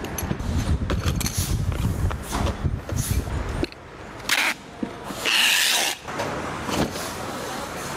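Steady low factory rumble with small clicks, which stops about halfway through. Then packing tape is pulled off a hand-held tape dispenser and run along a carton seam, giving short screeching tears, the longest lasting about a second.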